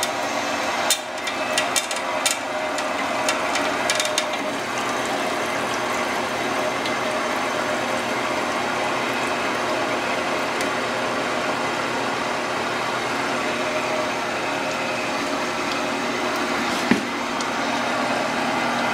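A 7x12 horizontal metal-cutting bandsaw running free with its blade not cutting and its coolant pump switched on. There are a few light ticks in the first few seconds, then it runs steadily.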